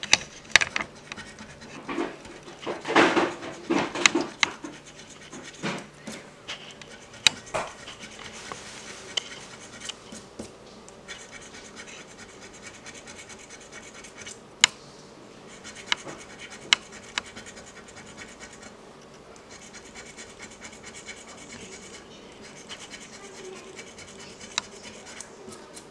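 A metal scratcher coin scraping the coating off a paper lottery scratch-off ticket in quick repeated strokes. The strokes are heavier and louder in the first few seconds, then lighter and steady, with a few sharp ticks.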